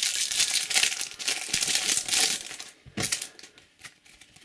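Foil wrapper of a Topps Slam Attax Takeover booster pack crinkling and crackling as it is handled and torn open, for nearly three seconds. A couple of short sharp clicks follow about three seconds in.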